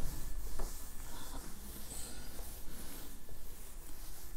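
Faint scratching of writing strokes, with a few light taps as the writing tip meets the surface.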